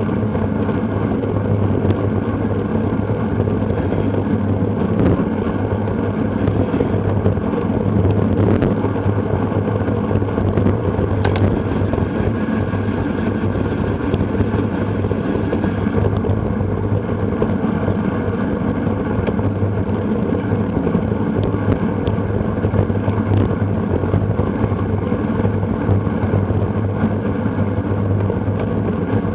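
Wind rushing over a Garmin VIRB action camera's microphone on a bicycle at racing speed: a steady loud rush with a low hum under it and a few faint ticks.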